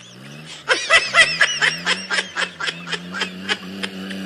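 Rapid snickering laughter, a quick run of repeated 'heh' sounds starting about a second in, over a steady low hum that rises slightly and then holds.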